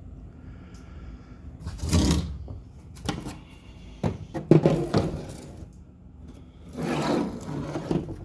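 Scraping and handling noises on a motorcycle fairing: about four short scrapes of half a second to a second each, with a few sharp knocks about three seconds in. No power tool is running.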